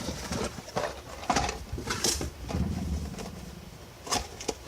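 About five scattered sharp clicks and knocks from small parts being handled.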